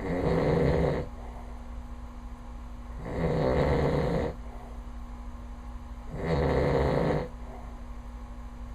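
A man snoring loudly in his sleep: three rough snores, each about a second long, coming about every three seconds with his quieter breathing in between.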